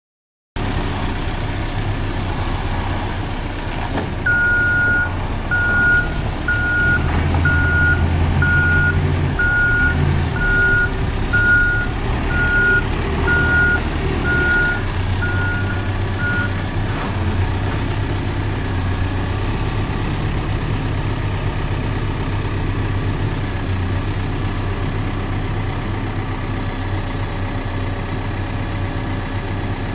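Caterpillar 420F backhoe loader's diesel engine running steadily, working harder for a few seconds near the middle. Its reverse alarm beeps about once a second for roughly twelve seconds, starting a few seconds in.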